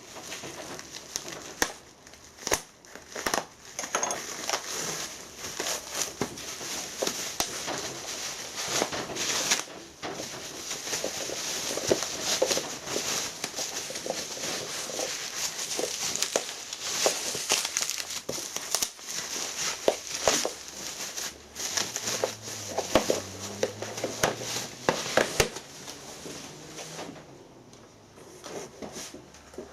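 A wrapped parcel being unwrapped by hand: wrapping crinkling and crumpling, with many small sharp crackles and knocks, settling down near the end.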